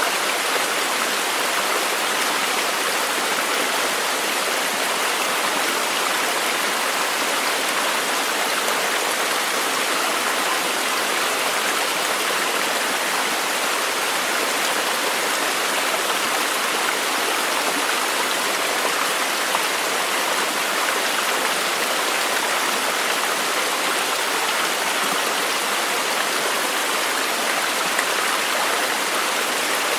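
Flowing water rushing steadily, an even hiss with no breaks or changes in level.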